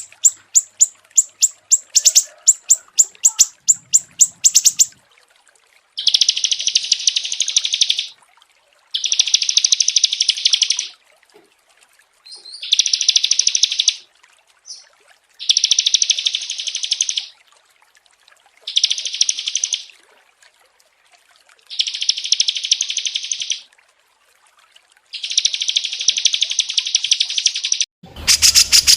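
Recorded songbird song. It opens with a rapid series of sharp, high notes, about four a second, then switches to a buzzy trilled phrase of about two seconds that repeats seven times with short pauses. A louder song cuts in near the end.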